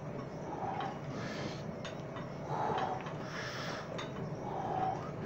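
A man's heavy, rhythmic breathing through a set of cable rope triceps extensions: a forced exhale every one to two seconds, with a few faint clicks.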